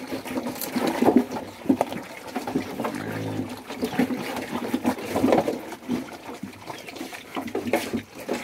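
A group of piglets feeding at a trough of wet feed: a steady run of chewing and slurping, with a short grunt about three seconds in.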